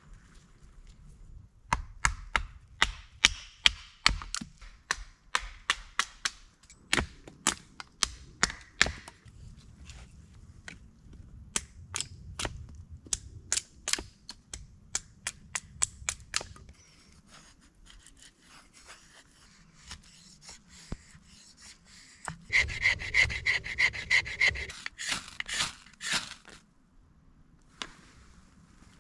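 Wood being worked by hand: a long run of sharp knocks, two or three a second, then a few seconds of rubbing strokes followed by a few more knocks near the end.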